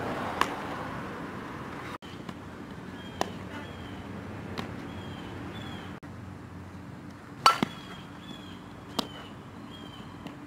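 Sharp smacks of a softball during an infield fielding drill, the ball being hit and snapping into a leather glove. About five come a second or more apart, the loudest about three-quarters of the way through, with faint short high chirps repeating in the background.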